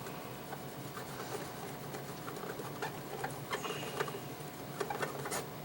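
Faint, irregular small clicks and light scratching from cleaning excess solder flux off an LED backlight strip with alcohol, a few ticks at a time, more of them in the second half.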